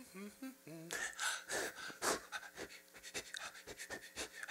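A vocal performer's voice: a few short sung notes, then loud breaths and quick, even panting strokes, a breathed rhythm of walking.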